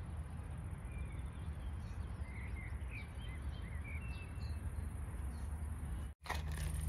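Outdoor ambience: a steady low rumble of background noise, with a few short, faint bird chirps about two to four seconds in. The sound drops out briefly near the end.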